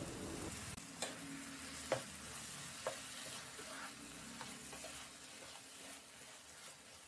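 Spatula stirring chicken and fried onions in a nonstick pan, with faint sizzling and three light taps of the spatula against the pan about a second apart, dying down near the end.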